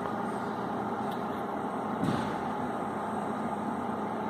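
Steady machine hum in the room, with a faint knock about two seconds in.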